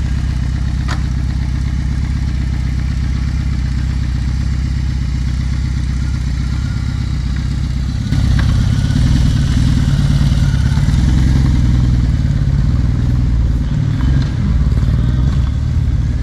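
BMW R18's 1800 cc boxer twin running through a custom 2-into-2 full-system exhaust with spiral baffles: it idles steadily, then gets louder about halfway through as the bike pulls away.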